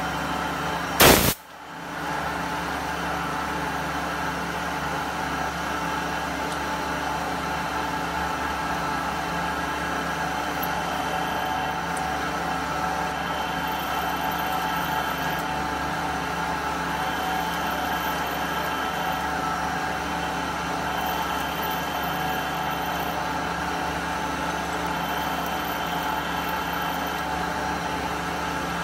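CNC machining centre running its program continuously: a steady mechanical hum with several fixed tones. A brief, loud burst of noise sounds about a second in.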